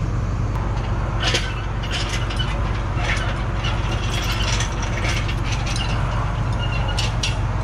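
John Deere excavator's diesel engine idling steadily, heard from inside the cab, with several sharp clicks over it.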